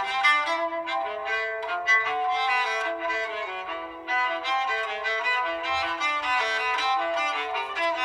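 LG X2 phone alarm tone: a classical melody of quick, short notes on a bowed string instrument.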